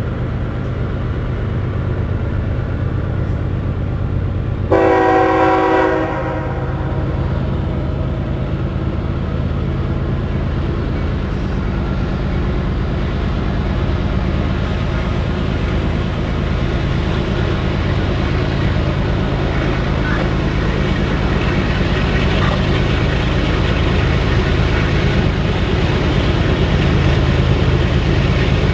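Two Canadian Pacific GE diesel locomotives working hard under load to accelerate a train back up to track speed: a steady low engine drone that slowly grows louder as the train approaches. About five seconds in, one short blast of the locomotive's multi-chime air horn.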